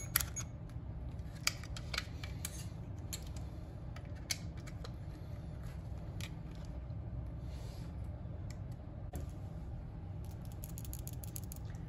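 Light plastic clicks and taps from a pocket multimeter being handled and turned over in the hands. Near the end comes a quick run of rattling clicks: a loose part rattling around inside the meter's case.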